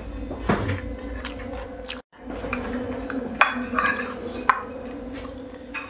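Metal spoon scraping and clinking against a ceramic plate while scooping up biryani, with a few sharp clinks, the loudest two in the second half, over a steady low hum. The sound cuts out completely for a moment about two seconds in.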